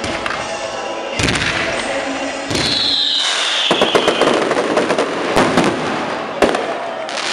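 Fireworks display: loud bangs and a dense crackle of bursting stars, busiest in the middle, with one hard bang near the end. About two and a half seconds in, a whistle glides down in pitch over about two seconds.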